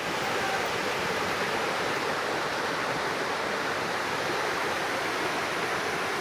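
Steady rushing of water: an even, unbroken hiss that starts suddenly and holds level throughout.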